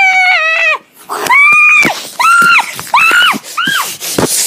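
A child shrieking in a very high voice: one long scream trailing off in the first second, then four short squeals that rise and fall, about one every 0.7 s.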